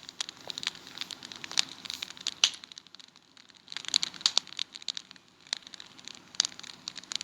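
Fire crackling: irregular sharp pops and snaps, with a short lull about three seconds in.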